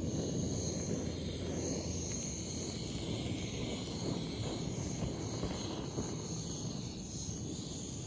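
Handheld butane gas torch on a gas canister, its flame hissing steadily as it singes the skin of a plucked bird.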